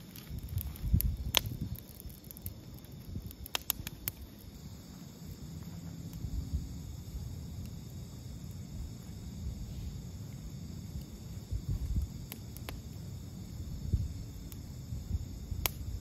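Insects, cricket-like, chirring steadily in a high, even drone, over an uneven low rumble. A few sharp clicks come through, twice close together near the start and once more near the end.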